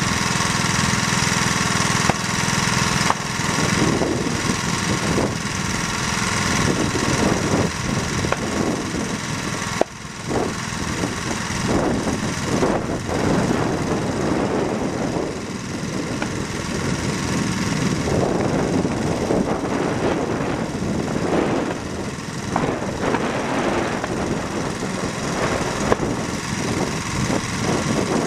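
Pulse jet engine of a control-line speed model running steadily on the ground before release: a loud, continuous rasping buzz.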